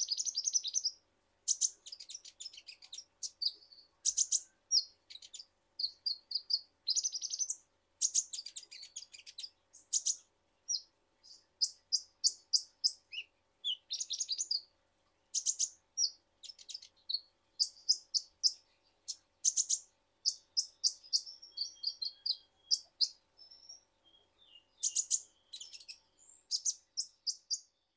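Male Van Hasselt's sunbird (purple-throated sunbird, the 'kolibri ninja' of Indonesian bird keepers) singing hard: quick runs of thin, high chirps and twitters, one burst after another with short pauses between.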